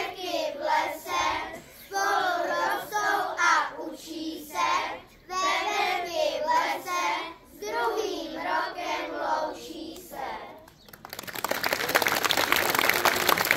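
A group of children singing together in short phrases; the singing ends about eleven seconds in and audience applause takes over.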